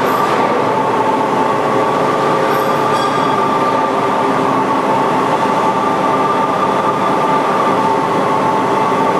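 Fortune V-Turn 46 CNC lathe running, a steady mechanical hum with a constant two-tone whine over it.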